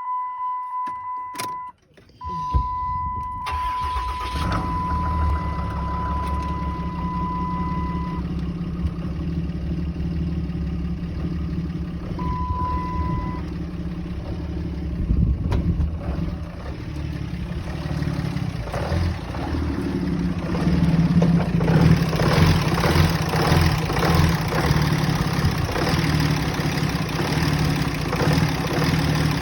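A car engine starts about two and a half seconds in, then idles roughly and unevenly: the rough idle is the fault being shown. A steady electronic warning tone sounds over the first several seconds and briefly again later. The engine gets louder from about two-thirds of the way through.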